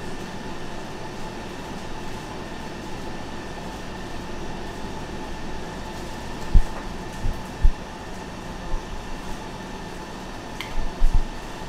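Steady machine hum, with a few dull low thumps about halfway through and again near the end.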